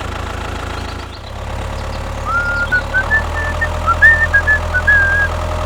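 Engine idling steadily with a low, even hum, joined about two seconds in by a run of short, high chirps.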